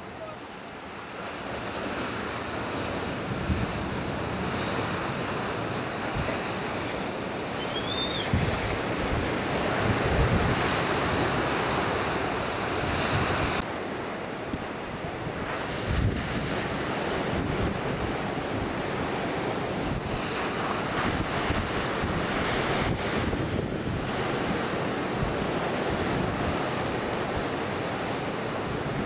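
Ocean surf breaking and washing in, a steady rushing noise, with wind buffeting the microphone in low thuds. A brief high squeak comes about eight seconds in.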